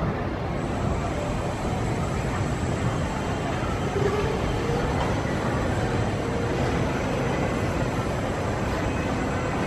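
Steady low rumble of a Gerstlauer steel family roller coaster train running on its track, with faint voices in the background.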